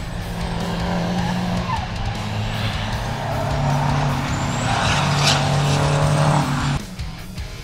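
Diesel engines of racing prime movers running hard as the trucks pass, a deep steady engine note that shifts pitch a couple of times. It grows louder, then drops away abruptly about seven seconds in.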